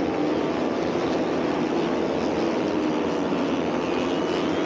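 Moto3 race motorcycles, 250 cc single-cylinder four-strokes, droning steadily as they run around the circuit.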